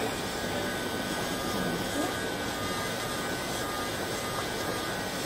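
Electric nail file (e-file) running steadily, its fine pointed bit working around a toenail's cuticle: an even whir with a thin, steady high whine.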